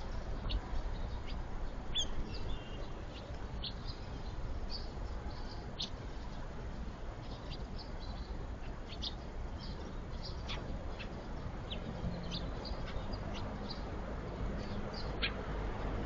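Birds chirping: many short, high calls scattered throughout, over a steady low background rumble.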